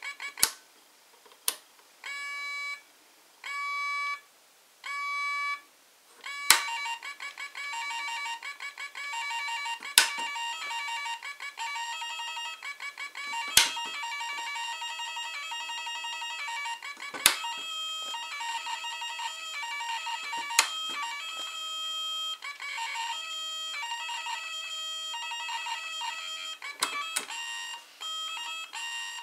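Homemade electronic toddler toy playing beeps and short electronic melodies, with sharp clicks of its toggle switches being flipped about nine times. Each click changes the pattern: short separate tones at first, then a busier run of changing notes.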